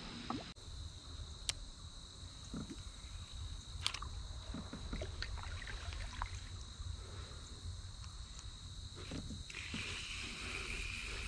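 Quiet sounds aboard a kayak on still water: a low steady rumble with a few sharp clicks and small knocks, the clearest about one and a half and four seconds in, and a faint steady high tone throughout.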